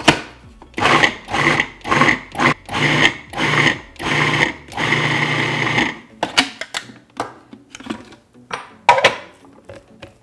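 Food processor motor pulsed in about eight short bursts, the last held for about a second, chopping a packed bowl of dried black beans, garbanzo beans and lentils; the bowl is so full that it is not blending well. After that come a few light knocks and scrapes.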